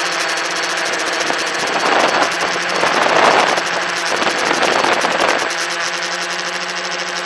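Tricopter's electric motors and propellers humming steadily in flight, heard from the phone riding on the craft. A louder rushing noise swells over the hum from about a second and a half in and dies away a little after five seconds.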